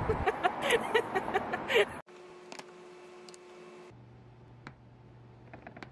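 A quick run of short clicks and rustles. Then quiet room tone with a low steady hum, and a few faint clicks as hands handle a black plastic hard-shell case.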